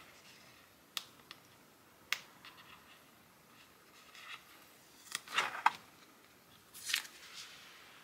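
Paper sticker sheets being handled: two sharp clicks about a second apart, then two short papery rustles a few seconds later.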